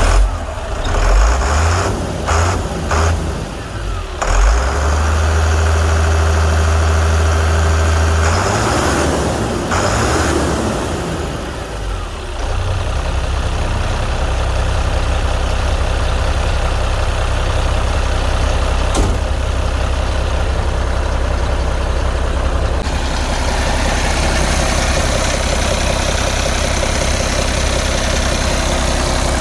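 International DT466 inline-six diesel in a 1982 International S1900 dump truck, just started after a fuel-filter change. It runs unevenly for the first few seconds, holds a raised speed, then drops in pitch about ten seconds in and settles into a steady idle.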